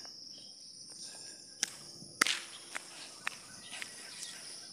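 Footsteps of a person walking on a road: a handful of irregular sharp steps, the loudest a little over two seconds in, over a steady high-pitched insect drone.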